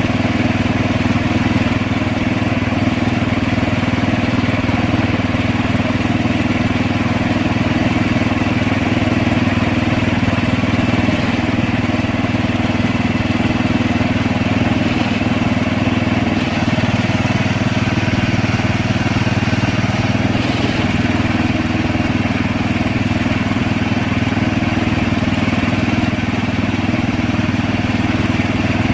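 Engine of an orchard aerial work platform running steadily at a constant speed.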